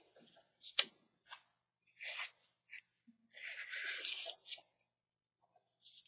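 Felt-tip permanent marker drawing on paper: a run of short scratchy strokes, with a sharp tap a little under a second in and one longer stroke of about a second just past the middle.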